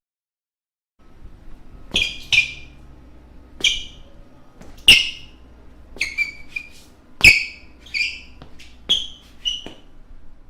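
Basketball shoe soles squeaking on a floor: about a dozen short, sharp, high-pitched squeaks at irregular intervals over a faint low rumble, starting about a second in.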